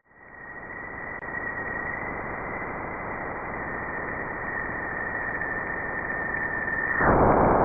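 Spacecraft radio and plasma-wave recording converted to audio: a steady static hiss with a thin high tone held through it. About seven seconds in the tone stops and the hiss turns louder.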